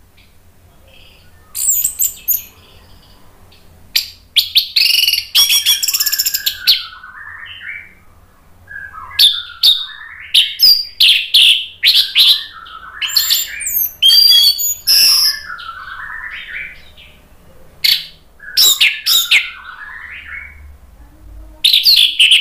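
Orange-headed thrush singing loudly in phrases separated by short pauses. The phrases mix sharp high notes, fast rattling runs and lower warbled notes.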